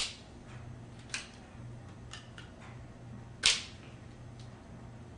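Sharp clicks and clacks of plastic parts being handled as a toy fire truck is taken apart, one at the very start, a few in the middle, and a louder knock about three and a half seconds in.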